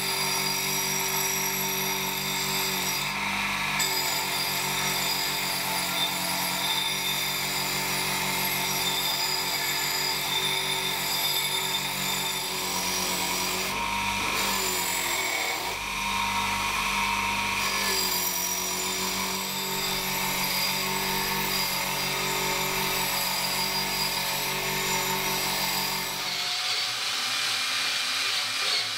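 Electric bench grinder running, its abrasive wheel grinding rust off an old steel axe head held against it. Near the end the sound changes to a hand drill running.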